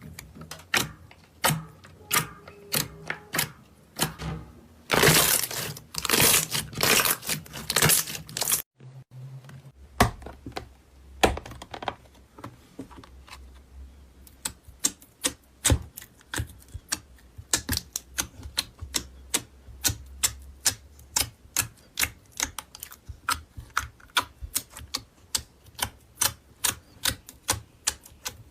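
Slime being squeezed and pressed by hand, making sharp clicks and pops, with a few seconds of denser crackling about a third of the way in, then steady clicking two to three times a second.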